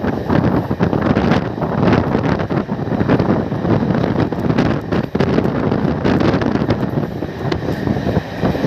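Wind rushing and buffeting over a microphone held out of a moving passenger train's coach, over the steady running noise of the train at speed.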